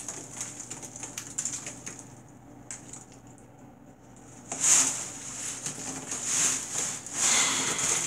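Potato chips crackling and crunching underfoot as a child shifts around in a tub full of them. Small crackles at first, a quieter lull about two seconds in, then louder crunching bursts from about four and a half seconds on.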